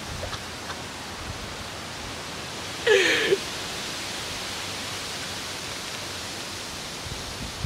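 Steady fizzing hiss of Diet Coke foaming up with Mentos in a bottle, with a short yelp about three seconds in.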